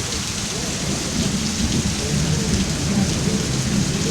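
Heavy rain pouring down during a thunderstorm, with thunder rumbling low and swelling in the middle.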